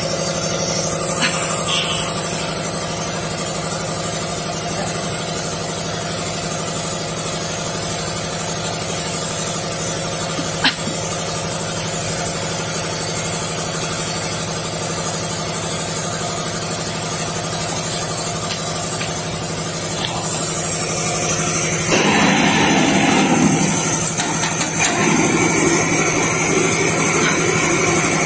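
Steady hum of running machinery made of several even tones. A single sharp click comes about ten seconds in, and a rougher rushing noise joins about 22 seconds in.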